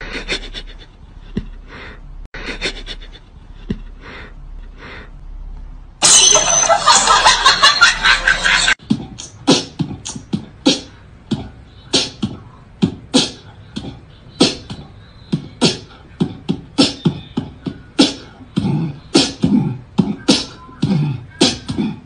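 A rhythmic percussive beat. About six seconds in, a loud harsh noise cuts in for nearly three seconds, then a quicker run of sharp hits follows at about two a second.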